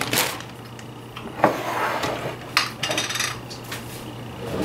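A few separate knocks and clinks of glass jars and kitchen things being handled, with a glass salsa jar set down on the countertop; the sharpest knock comes about a second and a half in.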